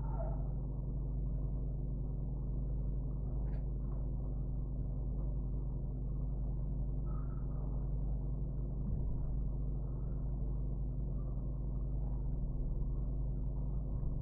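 Steady low electrical hum, a buzz of evenly spaced low tones that does not change, with a faint tick about three and a half seconds in.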